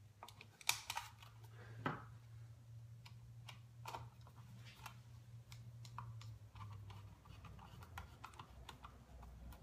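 Scattered light clicks and taps of small objects being handled, two of them sharper near the start, over a faint steady low hum.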